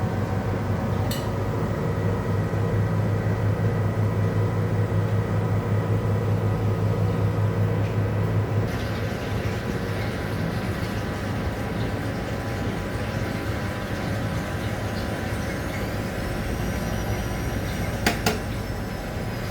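Rex-Electrolux Jetsy washing machine running late in its cycle: a steady low motor hum that drops away about nine seconds in. Near the end come a sharp click and a faint rising whine.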